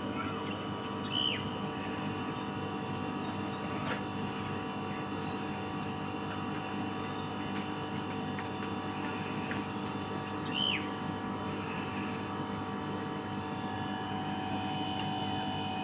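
Samsung split-type air conditioner running steadily after its outdoor control board was repaired: an even machine hum with several steady tones. A short high falling chirp comes about a second in and again about ten seconds later.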